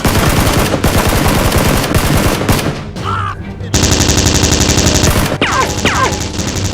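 Gunfire sound effects: a dense, uneven volley of shots, then from about three and a half seconds in a steady, rapid machine-gun rattle.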